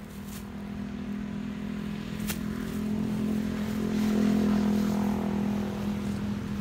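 A motor vehicle's engine humming steadily, growing louder to a peak about four seconds in and then easing off, with a single sharp click in the middle.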